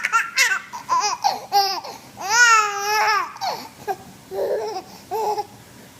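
Baby laughing at a sneeze: a run of high-pitched giggling squeals, the longest one about two to three seconds in. Shorter, softer squeals follow and die away near the end.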